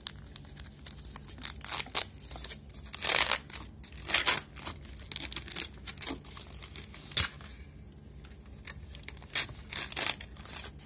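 Foil wrapper of a Cadbury Dairy Milk Silk Roast Almond chocolate bar, its gold outer wrapper and inner silver foil crinkling and tearing as it is peeled open by hand. The rustles come in irregular bursts, loudest around three to four seconds in.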